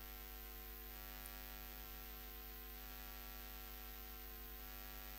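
Faint steady electrical hum; nothing else stands out.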